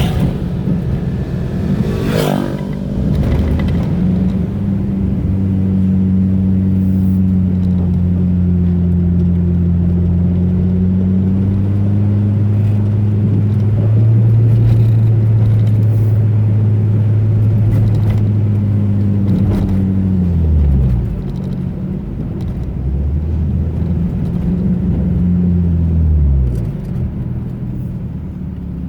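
Car engine pulling steadily on the road, its drone holding one pitch for most of the stretch. It drops off about twenty seconds in, climbs again briefly and falls away once more near the end. Scattered knocks and rattles from bumps in the road run through it, one sharp knock coming about two seconds in.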